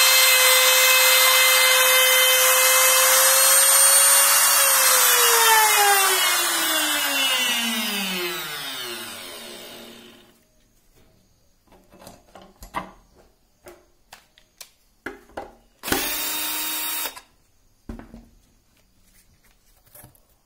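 Makita 3709 trim router running at full speed through a circular cut in a thin board, then switched off about four and a half seconds in, its whine falling steadily in pitch as the bit spins down over about five seconds. After that come light knocks of handling and one loud burst lasting about a second.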